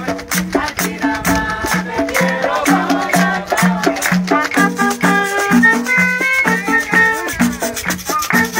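Latin percussion music: a drum beats a steady rhythm under rapid, high rattling strokes, and a melody of held notes comes in about halfway.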